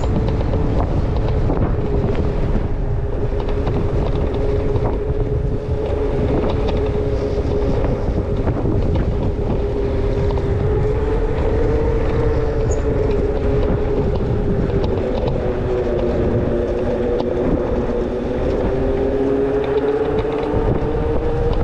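ONYX RCR electric moped's motor whining steadily while riding, its pitch drifting gently up and down with speed, under heavy wind rumble on the microphone.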